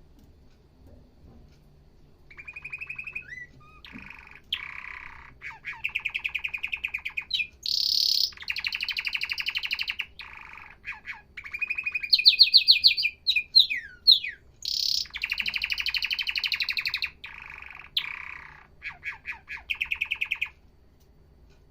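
Domestic canary singing: a long song of rapid trills and rolling phrases, with quick changes between them. It starts about two seconds in and stops shortly before the end.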